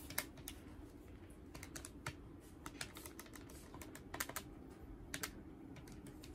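Faint, irregular light clicks and taps at an uneven pace, over a faint steady low hum.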